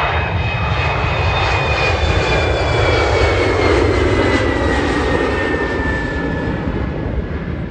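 Airliner passing low overhead: a loud engine roar swells to a peak about halfway through, while a high whine falls steadily in pitch as the plane goes by. Wind buffets the microphone underneath.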